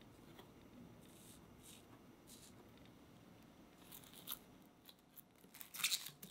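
Plastic cling film crinkling and rustling as it is stretched and smoothed by hand over a square metal cake ring, in short bursts about four seconds in and loudest near the end. Before that, a few soft swishes.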